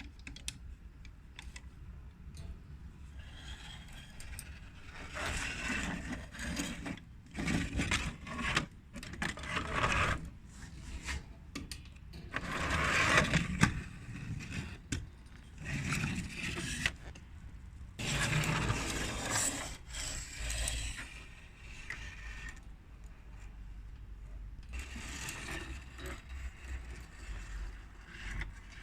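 Toy construction vehicles and their parts being handled, with irregular bursts of scraping and clicking.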